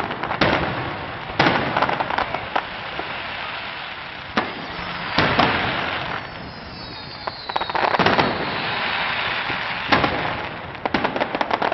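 Aerial fireworks shells bursting, a sharp bang every second or two with crackling in between. A falling whistle comes about six seconds in, and a fast run of crackling reports comes near the end.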